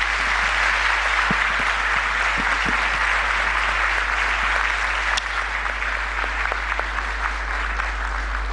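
A large audience applauding, a dense, steady clapping that thins a little after about five seconds.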